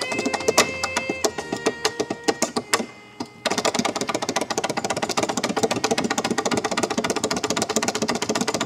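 Tap shoes striking a small tap board in quick rhythms, at first over a few held notes of backing music. From about three and a half seconds in, the taps run together into a fast, continuous roll.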